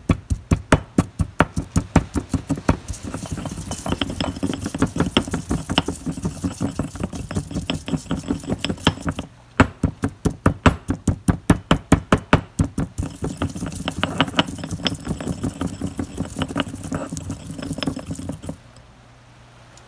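Stone pestle pounding garlic cloves with salt in a stone mortar: quick knocks about four a second, in two spells. Each spell runs into a stretch of denser grinding strokes, and the working stops shortly before the end.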